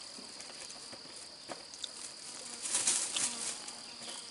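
Steady high-pitched insect buzz in forest undergrowth, with a thin plastic bag rustling as it is handled, loudest about three seconds in.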